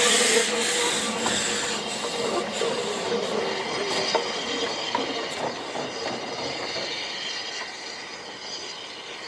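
Narrow-gauge Double Fairlie steam locomotive Merddin Emrys passing close by at low speed. The tail of its whistle dies out at the start under a burst of steam hiss, then come the running noise and scattered clicks of the wheels on the rails, fading as the train draws away.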